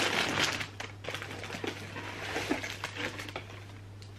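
Tissue paper and packaging crinkling and rustling as a pair of slippers is unwrapped, busiest at the start and tapering off after about three seconds.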